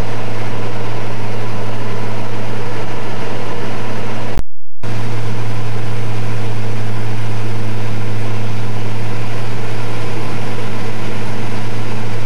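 Light aircraft's piston engine and propeller droning steadily, heard from inside the cabin, with a strong low hum that holds level. About a third of the way in, the sound cuts out completely for half a second after a click, where the recording is edited, then resumes unchanged.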